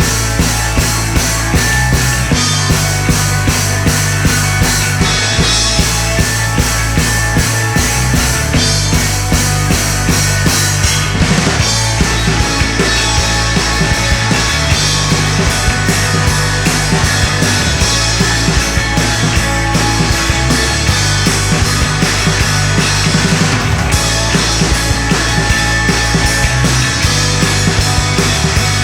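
Rock band playing live: a full band with a drum kit keeping a steady beat under dense, loud instruments.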